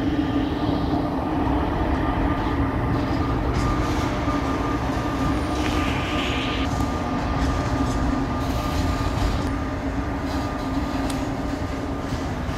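KZ8A electric locomotive hauling a freight train of boxcars and container wagons past at a steady speed. Continuous rumble of wheels on rail with a steady hum throughout, and a short hiss about six seconds in.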